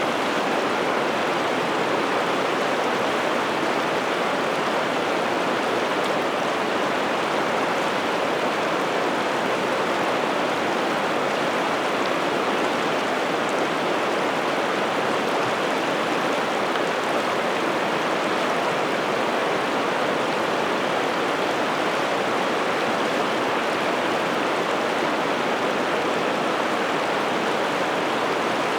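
Steady rushing of a river's water flowing over rocks and rapids.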